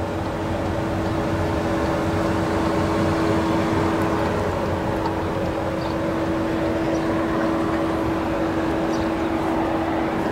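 2017 Škoda Rapid's 1.6 MPI four-cylinder engine idling: a steady hum with one constant droning tone.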